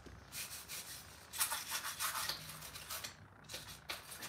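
A few short scuffing and scraping sounds, spread out over a few seconds, from footsteps on pavement and a chainsaw being handled and lifted off the ground.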